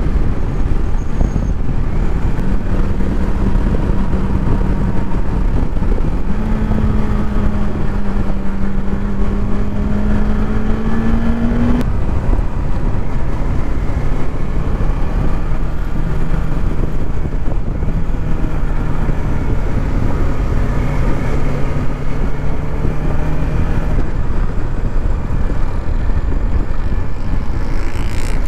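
Motorcycle engine running at riding speed. Its note climbs slowly, drops about twelve seconds in, then holds steady at a lower pitch.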